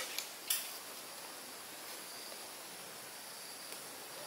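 Quiet outdoor nature ambience with a steady, faint high-pitched hum. A sharp click comes right at the start and a short rustle about half a second in.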